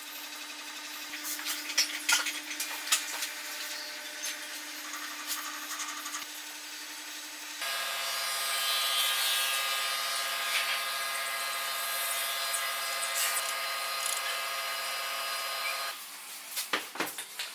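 Woodworking on a workpiece: scattered clicks and rubbing at first, then a power tool motor runs steadily for about eight seconds and stops abruptly, followed by a few sharp taps near the end.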